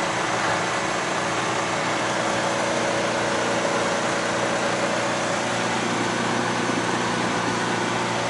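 Ford Transit Mk1 van heard from inside the cab while cruising at about 75 km/h. The engine drones steadily under road noise, with no change in speed or load.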